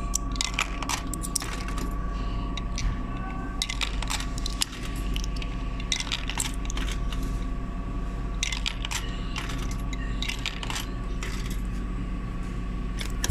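Coins being fed one after another into a vending machine's coin slot, a string of separate metallic clinks and drops, over the machine's steady electrical hum.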